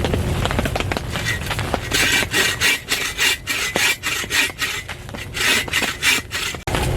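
Hand saw cutting through wood in quick rasping strokes, about two or three a second, starting about two seconds in.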